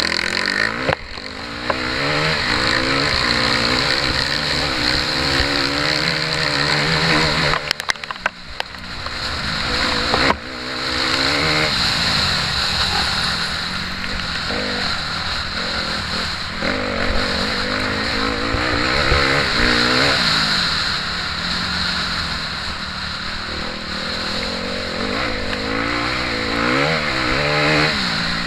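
Motocross bike engine heard through an onboard camera, revving up and falling away again and again as the throttle opens and shuts. The engine note drops briefly about eight seconds in, and a sharp knock comes about ten seconds in before the revs climb again.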